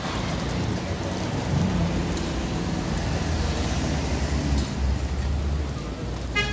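Meat strips sizzling on a hot flat-top griddle with a steady, rain-like hiss, as metal spatula and knife toss and scrape them, giving a few light clinks and a short ringing clink near the end.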